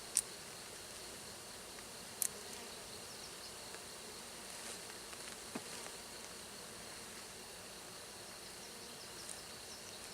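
Honeybees from a freshly installed package buzzing steadily in a mass, with a couple of sharp clicks near the start and about two seconds in.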